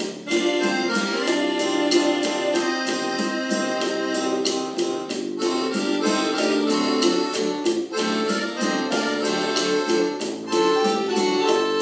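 Recorded Spanish-language song playing: an instrumental passage with no singing, a steady beat and held melody notes.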